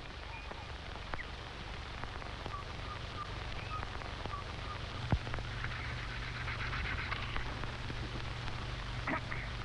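Hiss and crackle of a worn optical film soundtrack over a steady low hum, with a few isolated knocks, the clearest about five seconds in.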